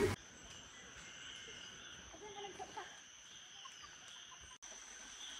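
Faint outdoor ambience: insects droning steadily in a high, thin tone, with a few faint bird calls about two to three seconds in.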